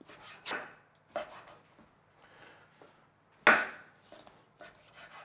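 Chef's knife cutting raw pork belly and shoulder into cubes on a wooden chopping board: a handful of irregular knocks of the blade on the board, the loudest about three and a half seconds in.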